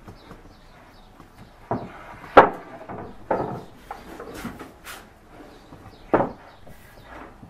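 Solid black walnut cabinet panels knocking against a wooden workbench and the cabinet case as they are handled and stood upright: a handful of sharp wooden knocks, the loudest about two and a half seconds in and another about six seconds in.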